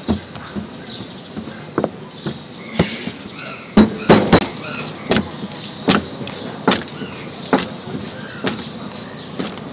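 Oiled paratha dough being slapped and thrown down onto a flat steel cooking surface to stretch it thin: a run of sharp slaps, several in quick succession about four seconds in, then one slap roughly every second.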